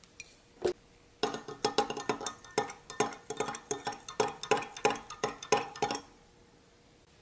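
A long metal spoon stirring milk in a glass measuring cup, clinking quickly and repeatedly against the glass for about five seconds, after a single knock about half a second in.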